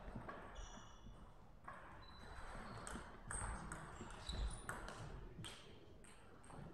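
A table tennis rally: a celluloid ball is struck by rubber bats and bounces on the table, making sharp hollow clicks roughly a second apart. A few short high squeaks come in between.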